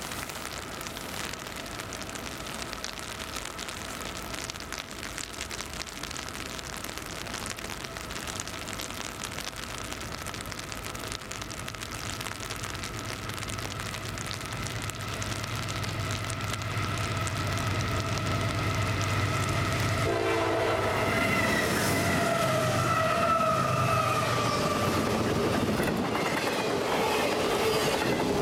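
Norfolk Southern intermodal freight train: the diesel locomotives' steady drone and tone grow louder over the hiss of rain as they approach. About twenty seconds in, the tone drops in pitch as the locomotives pass. The rumble and clatter of double-stack container cars follow.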